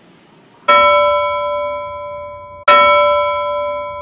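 A bell struck twice, two seconds apart, each stroke ringing with several clear tones and fading.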